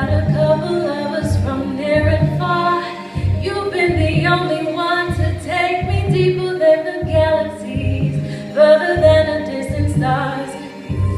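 A woman singing a slow melody into a microphone over an accompaniment with a low bass note pulsing on a steady beat.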